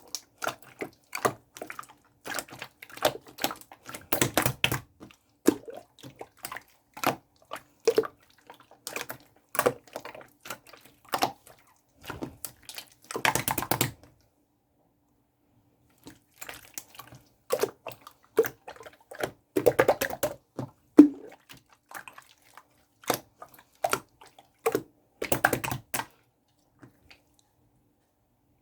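Clear blue slime being squeezed and pressed by hand, making irregular wet clicks and pops, with short crackling runs around 4, 13 and 20 seconds in. It stops briefly about halfway and goes quiet near the end.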